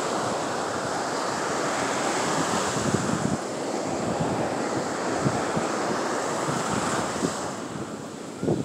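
Ocean surf breaking and washing up a sandy shore, with wind buffeting the microphone.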